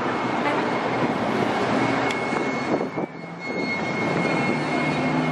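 Busy city street traffic, with a vehicle's brakes grinding as a steady high tone that grows stronger about two seconds in and lasts a second or so.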